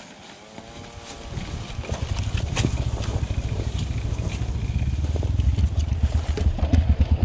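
Dirt bike engine, a Yamaha WR155R single-cylinder, running at low trail speed. It is quiet at first and gets louder after about a second, with knocks and rattles from the bike bouncing over the rough trail.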